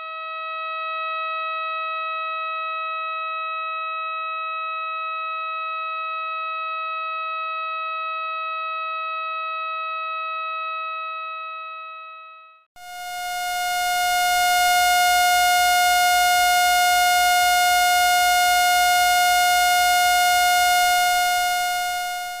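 Two steady electronic tones of similar pitch played one after the other, as space sonifications presented as the sound of a celestial object. The first is a clear tone that fades in and holds for about twelve seconds. It breaks off briefly, and a brighter, buzzier, louder tone holds for the rest.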